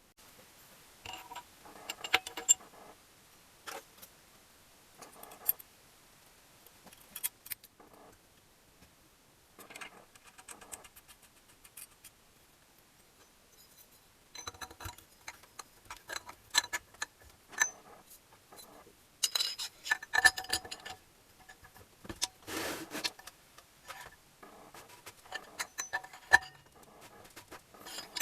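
Metal engine parts and hand tools clinking, tapping and rattling in irregular bursts of handling, with quiet gaps between, during assembly of a small tiller engine.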